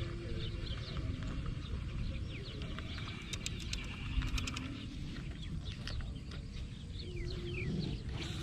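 Outdoor ambience of many short, high animal chirps over a low rumble, with a brief cluster of clicks a little after three seconds in.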